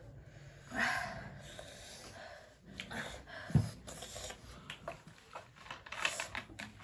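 Eating sounds at a mukbang table: breathy sniffs and chewing, with scattered small clicks and one duller knock about three and a half seconds in.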